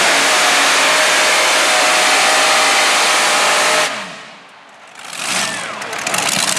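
Multi-engine 7,500 lb modified pulling tractor running flat out under load as it drags the sled, a loud steady roar. The engines cut off abruptly about four seconds in as the pull ends.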